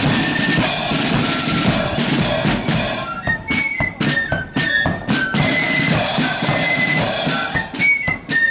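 Marching flute band playing a tune on flutes over side drums and a bass drum, with sharp drum strokes coming to the fore partway through and again near the end.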